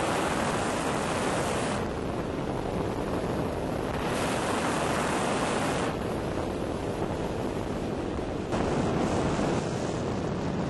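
Rush of wind on the microphone of a camera mounted on a flying ultralight trike, a steady noise with no clear engine note; its upper hiss drops abruptly about two seconds in and again near six seconds, returning each time about two seconds later.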